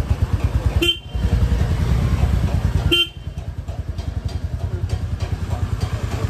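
Motorcycle engine running steadily while riding, with two short horn toots, about a second in and again at three seconds.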